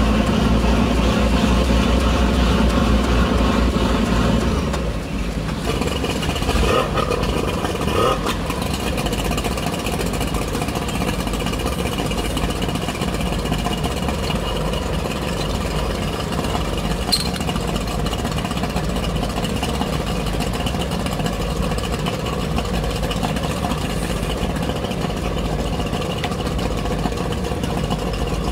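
Lifeboat's diesel engines running steadily close by. They are louder for the first few seconds, then ease back to a lower, even idle.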